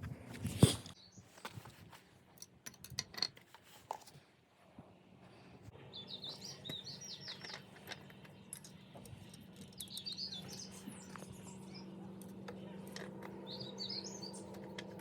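Small birds chirping in short bursts, over a steady low hum that sets in about five seconds in. Before that come a few scattered clicks and one sharp knock near the start.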